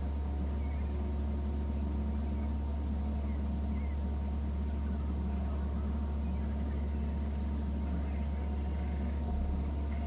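Steady low rumble and hum from an outdoor wildlife-camera microphone, with a few faint, short bird calls from the flock gathered out on the water.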